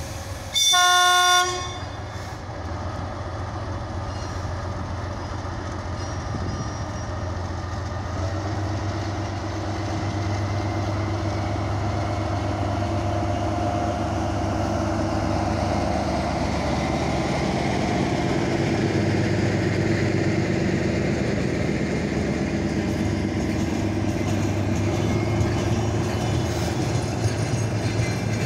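DR1A diesel multiple unit departing: one short horn blast about a second in, then its diesel engines running under power as it pulls away, the drone growing louder as the coaches roll past. Faint wheel clicks over the rail joints come near the end.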